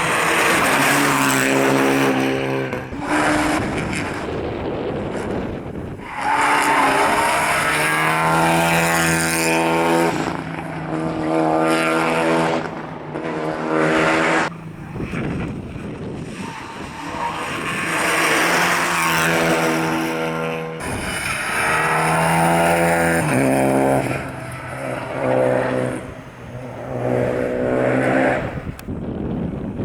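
Rally cars' engines revving hard and accelerating, the pitch climbing through the revs again and again and dropping sharply at each gear change or lift.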